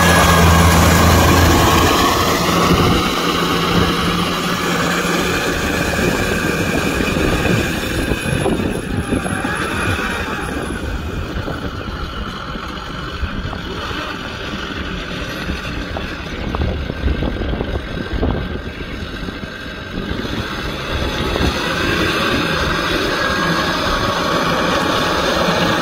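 Kubota M6040SU tractor's four-cylinder diesel engine running under load while its rotavator churns through wet paddy mud. The engine drone is strongest at first, dips quieter through the middle and grows louder again near the end.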